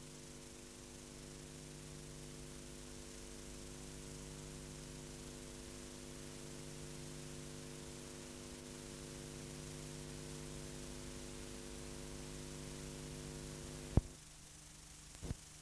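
Steady electrical mains hum and hiss from an old videotape transfer, with no music or voice. A sharp click comes about fourteen seconds in, as the hum drops away, followed by a smaller double click just after.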